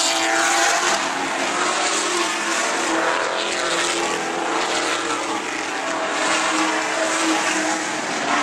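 A pack of sportsman stock cars racing on an oval track. Several engines are heard at once, their notes rising and falling as the cars lap and accelerate.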